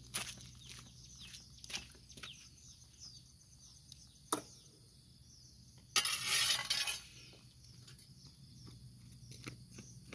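Metal shovel blade clinking and scraping against concrete and stones: scattered light clicks, a sharp clink about four seconds in, and a louder scrape lasting about a second around six seconds in.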